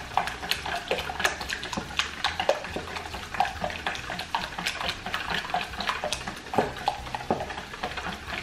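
Raw eggs being beaten by hand with a silicone-coated wire whisk in a metal mixing bowl: rapid, irregular sloshing of the liquid egg and quick taps of the whisk against the bowl.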